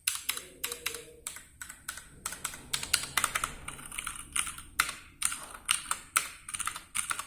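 Ducky One 2 Skyline mechanical keyboard with Cherry MX Brown tactile switches being typed on: a quick, uneven run of key clicks, several a second, with a brief pause about two seconds in.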